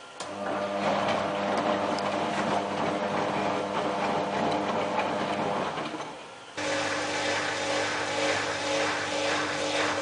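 Whirlpool AWM4066 washing machine running: a steady motor hum with water noise. The hum changes abruptly to a different pitch about six and a half seconds in.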